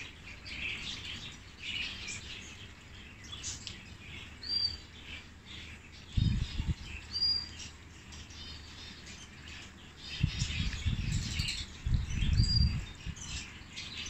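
Many small cage birds chirping and twittering in an aviary, with short high calls repeating now and then. Low rumbling noise comes in about six seconds in and again, louder, from about ten to thirteen seconds.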